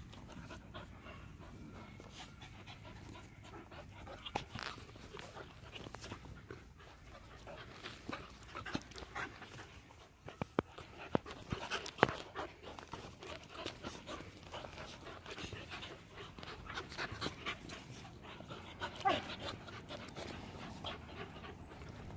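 A group of puppies panting as they romp and wrestle, with scattered short knocks and scuffles, the loudest around the middle.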